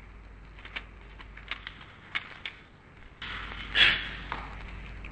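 Background noise of an old speech recording: a steady hiss with scattered faint clicks. The hiss steps up about three seconds in, and a short, louder burst of noise follows just under four seconds in.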